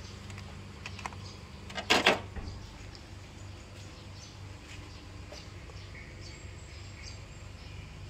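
A brief clattering knock about two seconds in, over a steady low hum, with a few small clicks.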